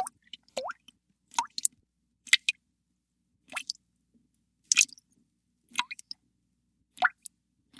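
Water drops falling into water one at a time, about one drip a second at an uneven pace, each a short plop with a quick rising pitch.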